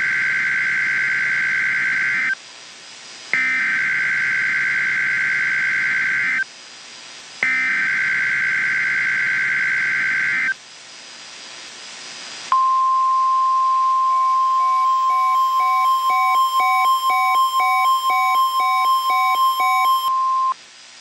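Emergency Alert System tones: three bursts of SAME digital header data, each about three seconds long with a second's pause between them. Then a steady single-pitched alert tone of about 1 kHz, the NOAA Weather Radio warning alarm, sounds for about eight seconds, with a faster beeping of about two beeps a second over it for its last six seconds.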